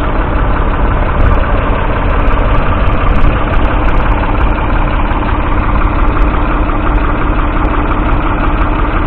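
Ford 3000 tractor's 2.9-litre three-cylinder diesel engine running steadily.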